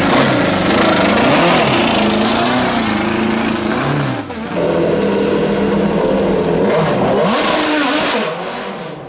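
Hillclimb race car engine at full throttle, revving up and dropping through gear changes. There is a brief lift about four seconds in, then it revs hard again and fades as the car pulls away near the end.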